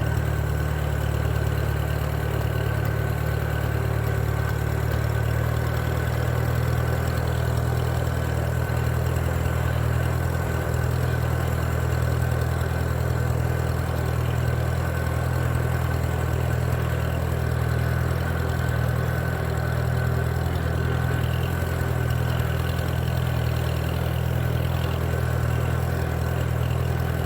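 Freshly rebuilt Minneapolis Moline BF tractor engine running steadily at an even speed, with a smooth, regular low pulse and no misfires or changes in pitch.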